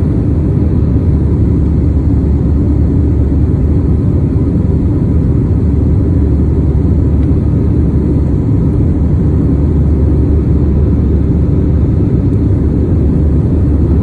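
Jet airliner cabin noise in flight: a steady low rumble of the engines and rushing air, heard from a window seat.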